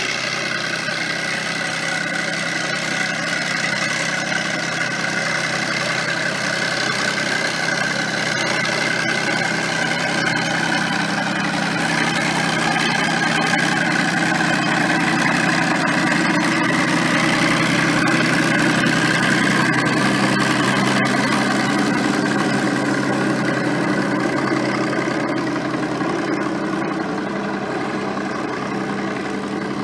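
International Harvester TD-18 crawler tractor's six-cylinder diesel engine running steadily, freshly started in the cold. It gets a little louder in the middle as the crawler drives past pulling a sleigh.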